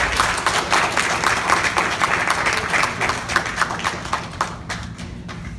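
Audience applauding: dense, irregular clapping that thins out and dies away about five seconds in.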